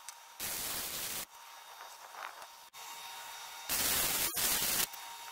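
Chicago Electric 125-amp flux-core wire welder arc crackling in two short welds of about a second each, one about half a second in and one near four seconds in, the second broken briefly midway. The welder is set to maximum current.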